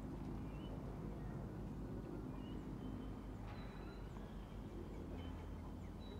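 Distant jet airliner at cruising altitude, a steady low rumble from overhead. Small birds chirp briefly now and then over it.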